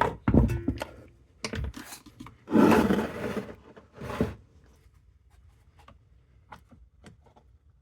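Handling noises as a small chainsaw is turned around and its carburetor worked free: several sharp knocks in the first second, a scraping rub lasting about a second around the middle, then faint light clicks.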